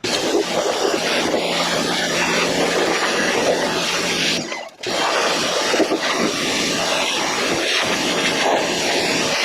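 Pressure washer jet spraying against a Jeep JK's frame, a loud steady hiss with a low hum underneath in the first half. The spray cuts out briefly a little before halfway and starts again.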